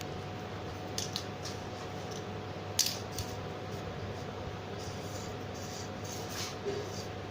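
Kittens playing: a few small scratches and taps of paws and claws, the sharpest about three seconds in and a cluster near the end, over a steady hiss and hum.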